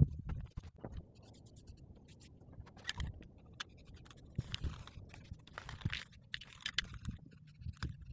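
Aerosol spray-paint can hissing in several short bursts, mostly in the second half, with a thump at the start and scraping, crunching footsteps on gritty ground.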